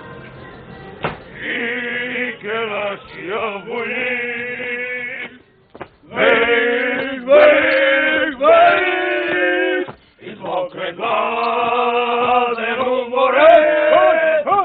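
A male voice singing a slow, chant-like song in three long phrases, with short breaks about five and ten seconds in.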